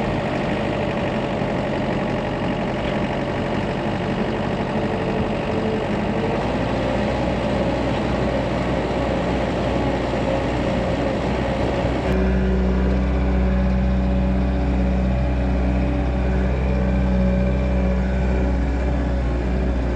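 Farm loader's engine running steadily. About twelve seconds in the sound switches abruptly to a deeper, steadier engine note.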